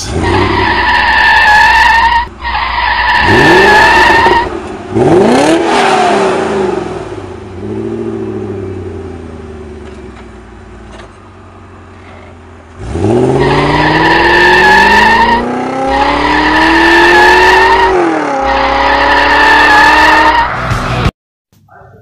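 Sound effect of a car engine revving up in long rising sweeps, with squealing tyres over it. It cuts off suddenly near the end.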